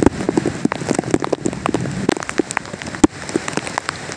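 Heavy rain falling, with many sharp, irregular ticks of large drops striking, two of them louder: one near the start and one about three seconds in.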